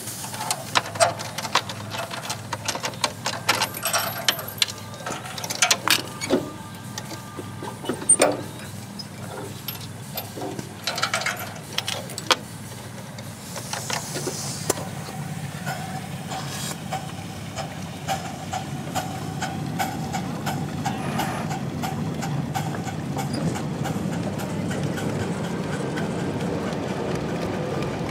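Metal clinks, knocks and rattles from the pin and safety chains of a ride-on scale railroad car's coupling as it is worked loose by hand. About halfway through these stop and a steady rolling rumble takes over, growing louder as the cars move along the track.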